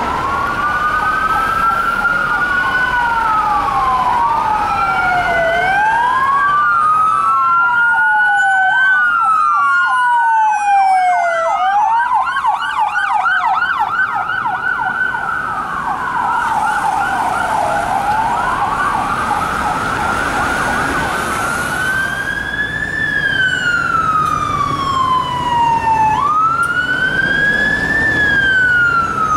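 Emergency-vehicle sirens wailing, two or more overlapping out of step, each rising and falling slowly. For a few seconds about a third of the way in they switch to a rapid yelp, over the noise of traffic.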